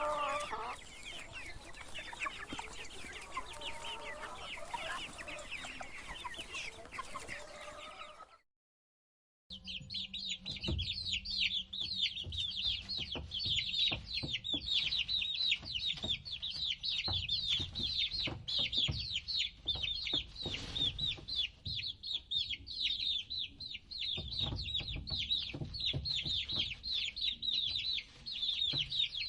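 Chickens clucking, then after a second's silence a flock of chicks peeping: a dense, high chorus of many short peeps.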